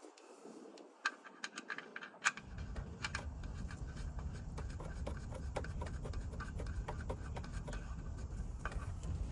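Hands working on small parts: scattered light clicks and scratches, with a low steady rumble setting in about two seconds in.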